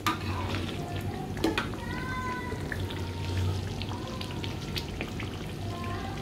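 Red chili paste for sambal tumis bubbling in oil in a wok, with scattered pops and splutters as thick bubbles burst. About two seconds in, a drawn-out pitched call sounds in the background for a second or so.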